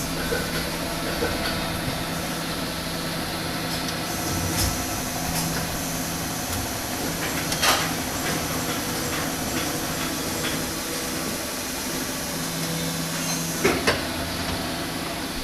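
Plastic injection moulding machine running: a steady mechanical hum with hiss, a low drone that comes and goes, and a few sharp clacks, the clearest about eight seconds in and near the end.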